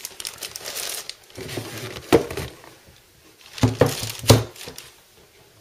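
Clear plastic bag crinkling and rustling around a boxed PC power supply as it is lifted out of its cardboard packaging. A few short handling knocks come around the middle.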